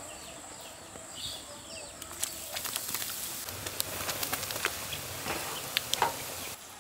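Prawns frying in sesame oil: a steady sizzle with sharp pops and crackles scattered through it. The sound drops off abruptly near the end.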